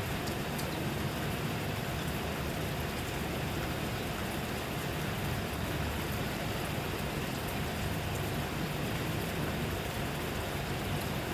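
Steady rain falling, an even hiss with faint scattered ticks of single drops.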